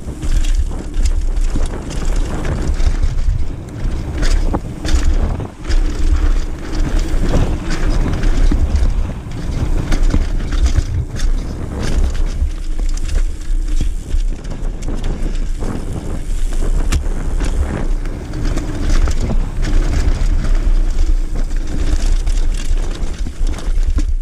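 Knolly full-suspension mountain bike descending a dirt forest trail at speed, heard from a mounted action camera: heavy wind buffeting on the microphone, tyre noise on dirt, and frequent sharp clacks and rattles from the bike over bumps.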